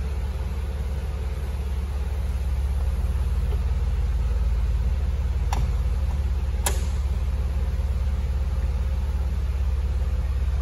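Power soft top of a Mercedes E320 convertible closing, over a steady low hum. About halfway through come two sharp clicks about a second apart, the second louder, as the top-storage lid shuts and latches.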